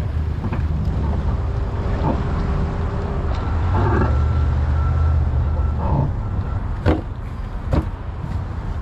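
Pickup truck engine running in a steady low rumble as it tows a boat on its trailer up the launch ramp and across the lot, louder for a while midway. A couple of sharp knocks come near the end.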